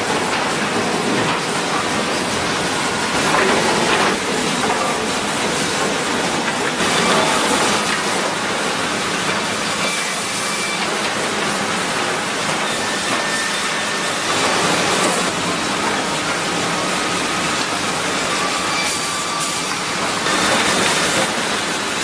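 Sawmill chain transfers, belt conveyors and roller decks running steadily as a continuous mechanical din, with boards clattering and rattling along them in louder surges every few seconds.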